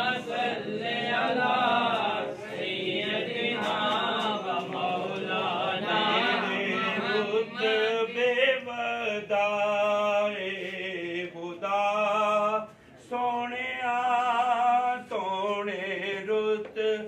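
Male devotional chanting: a slow melodic recitation sung in phrases, with long held notes and short breaks between phrases.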